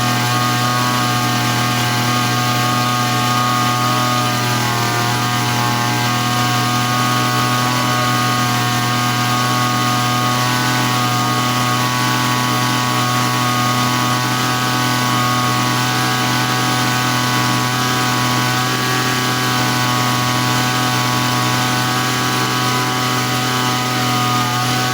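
Small grass-cutter engine running steadily at an even speed without faltering, on a test run after a repair for stalling when warm.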